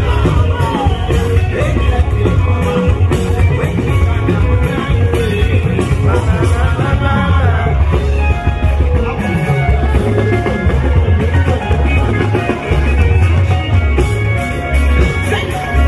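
Live afrobeat music played loud, with a heavy pulsing bass beat and singing over it.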